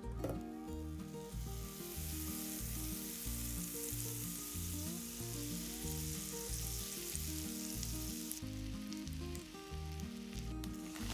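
Butter sizzling steadily in a hot frying pan as food fries in it, the hiss building about a second in.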